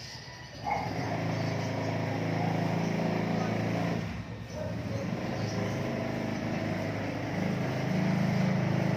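Mercedes-Benz M271 four-cylinder petrol engine running, coming in a little under a second in as a steady low hum, briefly dropping around the middle and getting louder near the end.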